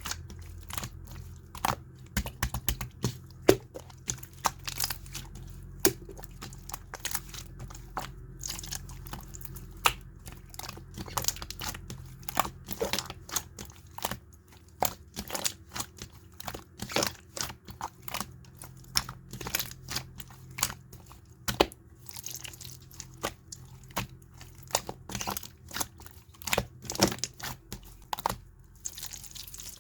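Clear slime being squeezed and poked by hand, giving a steady stream of irregular sharp pops and clicks of varying loudness.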